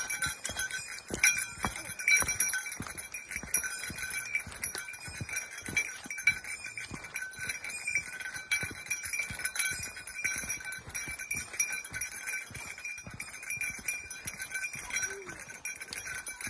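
Footsteps walking briskly down a dirt and leaf-litter forest trail, with a small bell jingling steadily as the hiker moves.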